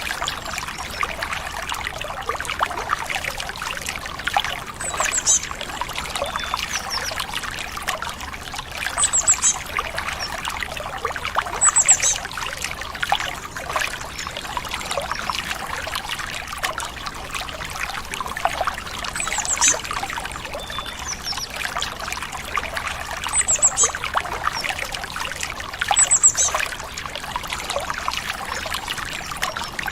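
A stream trickling steadily, with short high bird chirps six times, a few seconds apart.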